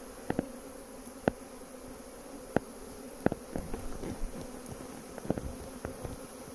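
Honeybees buzzing in a steady hum around an opened hive, with several sharp short clicks or taps scattered through it.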